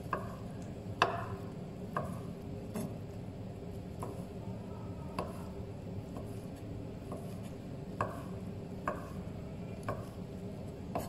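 Kitchen knife slicing Vietnamese pork sausage (moo yor) on a wooden cutting board. The blade knocks on the board about once a second at an uneven pace, over a steady low hum.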